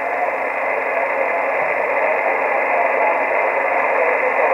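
Steady band-noise hiss from the Kenwood TS-480 transceiver's speaker, receiving in USB on the 14 MHz (20 m) band with no station transmitting. The hiss is cut off sharply above and below by the 2.4 kHz SSB receive filter.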